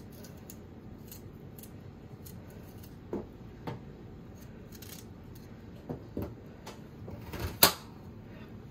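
A few light clicks and knocks of kitchen utensils and ingredients being handled at a pot, the sharpest near the end, over a low steady background noise.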